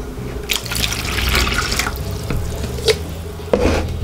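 Water poured from a plastic measuring jug into a metal mixing bowl, splashing for about a second and a half, followed by a few light knocks.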